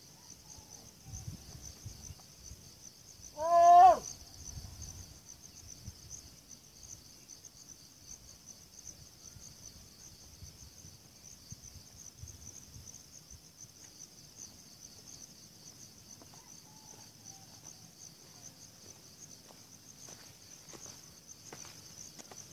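Steady high-pitched insect chorus, a continuous fine trill. About three and a half seconds in, a single loud call with a wavering pitch cuts across it for about half a second.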